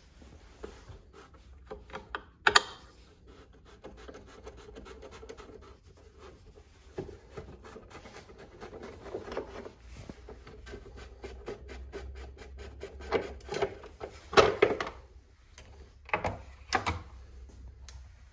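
Handling noise: scattered rubbing, scratching and clicks, with a few sharp knocks, the loudest about two and a half seconds in and about fourteen seconds in, over a faint low hum.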